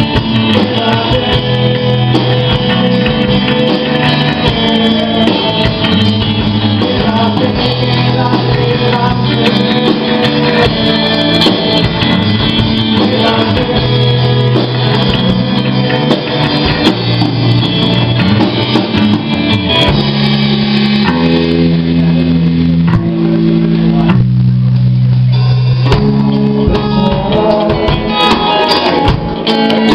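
Live rock band playing: electric guitar, bass guitar and drum kit, with the bassist singing. About two-thirds through, the drums drop out for a couple of seconds, leaving held low notes, then the full band comes back in.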